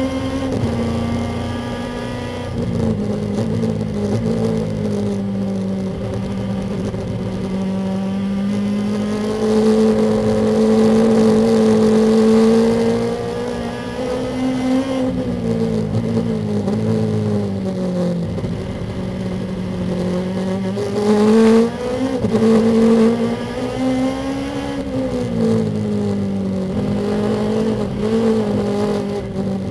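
Lexus IS-R race car's engine heard from inside the cabin, running at low, fairly even revs that rise and dip only gently while the car coasts out of gear. There is a short louder burst about two-thirds of the way through.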